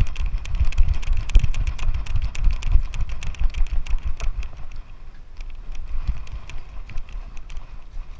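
Rapid, irregular small clicks and taps over a low rumble, as from a GoPro camera being jostled while a dog runs about. The clatter is loudest in the first half and eases about five seconds in.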